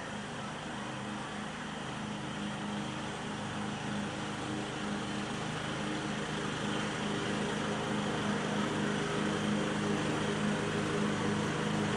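A steady machine hum with a constant low pitch and a hiss over it, slowly growing louder.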